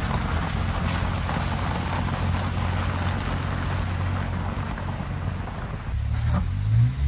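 Kei-truck camper on snow-chained tyres driving slowly over snow, its small engine a steady low drone.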